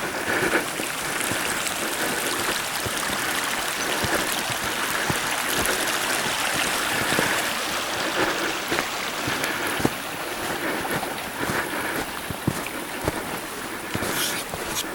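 Steady rushing of creek water running over rocks, with scattered faint thumps.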